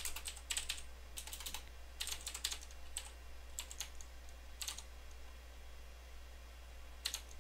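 Computer keyboard being typed on: quiet keystroke clicks in short irregular bursts, then a pause of about two seconds before one last keystroke near the end.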